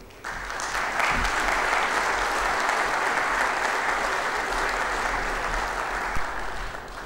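Audience applauding, starting a moment in and going on steadily, easing slightly toward the end.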